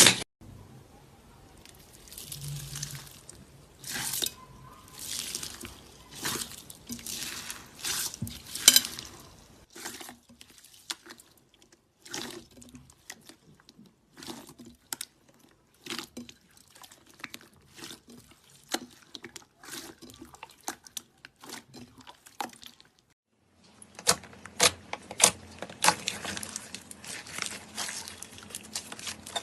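Slime being squished and worked by hand, making a run of wet clicks, squelches and small popping crackles. There is a brief pause a little before the last quarter, then the clicking resumes.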